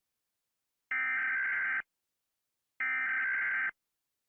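Emergency Alert System SAME header data tones: two harsh, buzzing digital blasts of just under a second each, about two seconds apart, the coded signal that opens an emergency alert.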